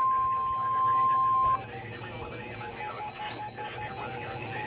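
NOAA Weather Radio's 1050 Hz warning alarm tone from a weather radio receiver during the weekly test: one steady high tone that cuts off suddenly about a second and a half in, leaving fainter radio sound.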